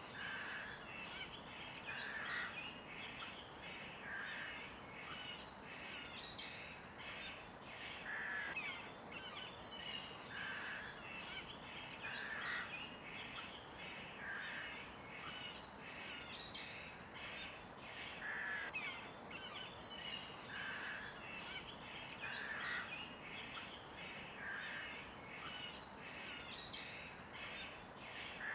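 Several birds chirping and calling, many quick high chirps and trills overlapping, with a lower call repeating about every two seconds over a steady background hiss.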